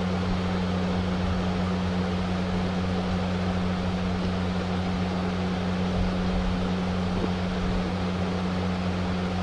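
A steady electric hum with a constant airy hiss underneath, like a small motor such as a fan running.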